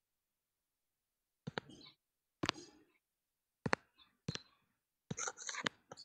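Sharp clicks, each trailing off into a brief soft noise, in five or six short clusters after a second and a half of dead silence.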